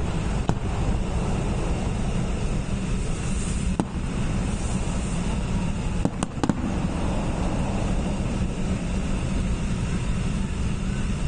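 Fireworks going off: sharp bangs about half a second in, near four seconds, and two in quick succession around six seconds, over a steady low rumble.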